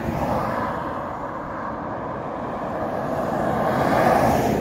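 A road vehicle passing on the highway: its tyre and road noise swells to a peak about four seconds in, then fades.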